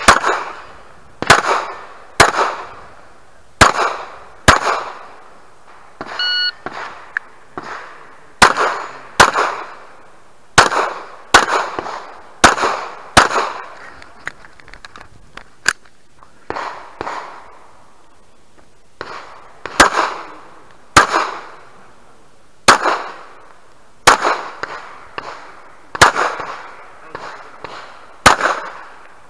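Glock pistol shots fired in rapid pairs and short strings, about twenty sharp cracks in all, each with a brief echoing tail.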